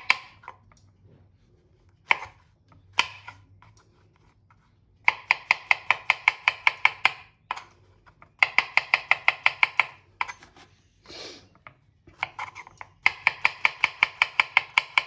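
Small kitchen knife slicing mushrooms on a wooden cutting board: three runs of quick, even taps of the blade on the wood, about eight a second, after two single knocks.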